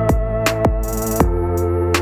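Background music: held chords over a light, regular drum beat, with a brief hissy cymbal-like swell about a second in.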